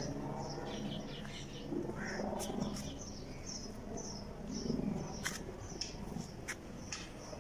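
Small birds chirping over and over in short high calls, with a few sharp clicks in the second half.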